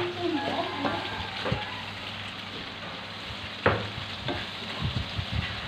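Chicken offal sizzling in thick sweet-soy bacem sauce in an aluminium wok, the sauce cooking down to dry, while a metal spatula stirs it. The spatula scrapes and knocks against the pan a few times, once about three and a half seconds in and several times near the end.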